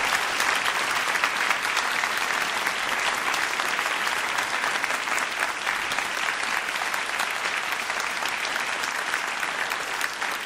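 Live concert audience applauding the end of a told story: dense, sustained clapping that eases off slightly toward the end.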